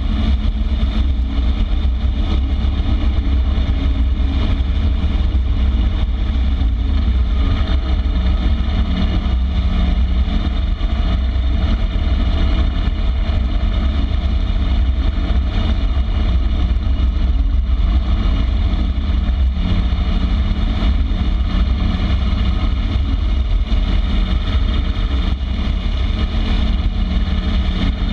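Harley-Davidson Street Glide's V-twin engine running at a steady cruising speed, its pitch holding even throughout, with a strong low rumble of road and wind noise.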